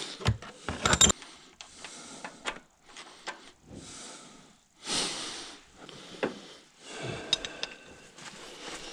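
Hand tools and bolts clicking and clinking on engine metal during teardown, with a few sharp knocks around the first second and more later, between several short bursts of hiss.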